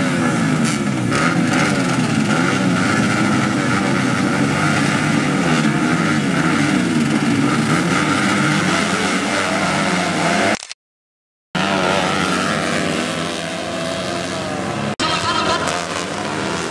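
A pack of two-stroke 110–125 cc underbone motorcycles revving together, their pitches wavering up and down as the riders blip the throttles while waiting at the start gate. The sound cuts out completely for about a second around two-thirds of the way in. The engines then carry on, less loud.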